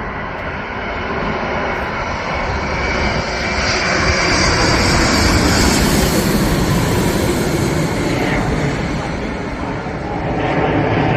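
Jet aircraft engine noise, a steady rushing sound with a faint high whine. It swells to its loudest about halfway through, then eases off.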